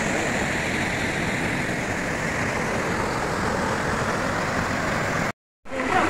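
Steady rushing of a small waterfall and mountain stream, a full, even roar of water. It cuts out abruptly for a fraction of a second near the end.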